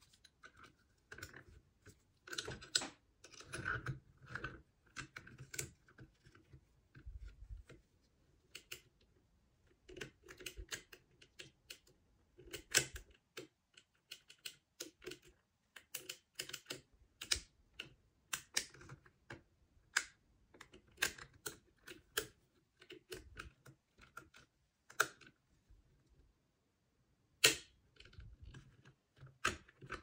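Lock-picking tools clicking and scraping in the keyway and lever pack of a Union 3G220 mortice deadlock, in uneven clusters of small metallic clicks, with one sharper click near the end.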